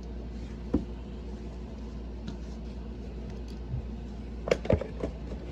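Handling noise as a carrying strap is fitted to a vintage Kirby vacuum's attachment set: a single click about three-quarters of a second in, then a few clicks and knocks around four and a half seconds, over a low steady hum.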